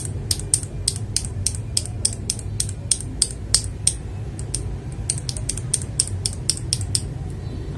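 Gateron Pro Milky Yellow linear mechanical keyboard switch pressed repeatedly by hand, giving a run of sharp clacks several times a second, with a short lull about halfway. The switch bottoms out cleanly, which the reviewer calls a very nice pop.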